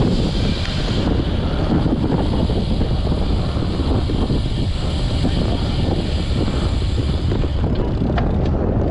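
Wind buffeting the microphone of a handlebar-mounted camera on a road bike at about 30 km/h, with tyre noise from the road: a steady rumbling rush. It eases near the end as the bike slows.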